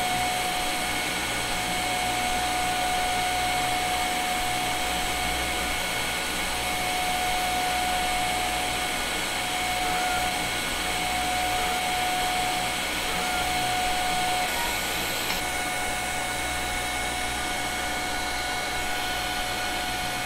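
TIG welding arc on stainless steel at about 73 amps, a steady hiss with a faint high whine, as a weave bead is run.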